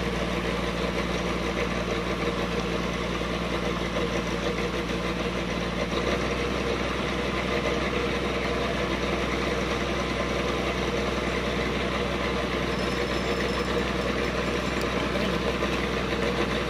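Engine of a river sand-dredging pump running steadily, an even low drone with no change in pitch.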